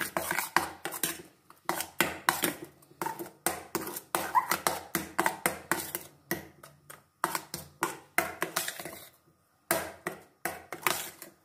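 Metal spoon stirring a thick mayonnaise-and-cream dressing in a glass bowl, clinking and scraping against the glass in quick, irregular strokes, with a short pause about nine seconds in.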